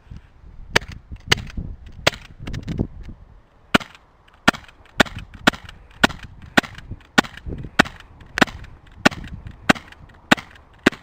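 A string of sharp cracks, a few scattered at first, then a steady run of about two a second from about four seconds in, with low rumbling between them.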